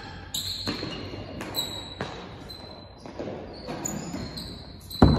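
Real tennis rally: the hard ball struck by rackets and bouncing off the court's walls and floor, a series of sharp knocks echoing in the enclosed court. The loudest hit comes near the end.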